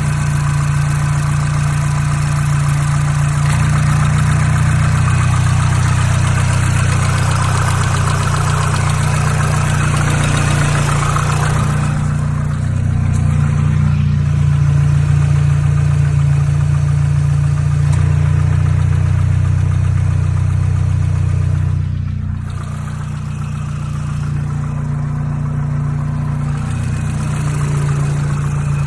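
Mazdaspeed 3's turbocharged 2.3-litre direct-injection four-cylinder idling, with normal valve and injector chatter and a steady tick behind it of unknown origin.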